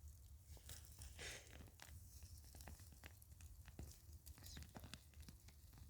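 Faint rustling and scattered small crackles of a potato plant being pulled up by hand out of the soil, over a faint low rumble.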